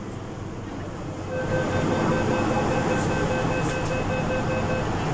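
MTR K-Train door-closing warning beeping in a quick, even run of short tones from about a second in until near the end, as the sliding doors shut. A steady hum from the train car runs underneath.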